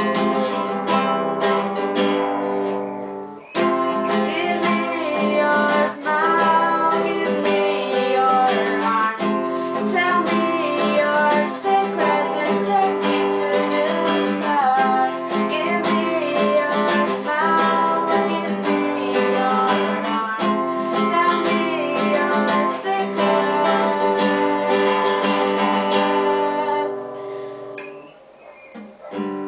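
A woman singing a melody over a strummed classical guitar. The playing stops briefly about three and a half seconds in, and dies away near the end before starting again.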